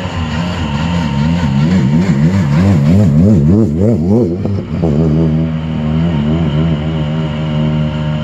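Rally car engine running at low speed, its revs rising and falling in quick waves several times a second, then settling into a steadier run about halfway through.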